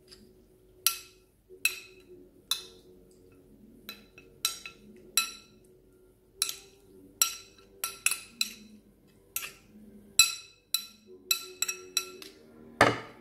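A metal spoon clinking against the inside of a ceramic bowl while raw anchovies soaking in vinegar are stirred: sharp, ringing clinks at an irregular pace, about one and a half a second, with a heavier knock near the end.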